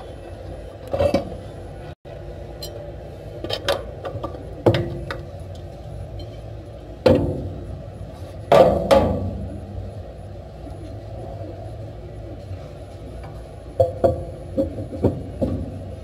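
Scattered metal clinks and knocks as a cast blower sheave is handled and slid onto an electric motor's shaft, over a steady low hum. The knocks come singly and in small clusters, with a louder pair about seven and eight and a half seconds in and a quick run of taps near the end.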